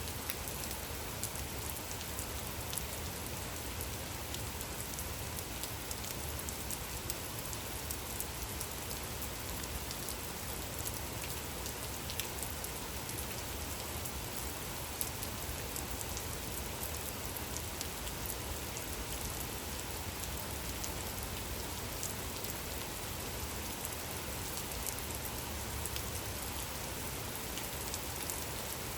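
Gentle rain falling steadily, with the ticks of single drops landing scattered through it.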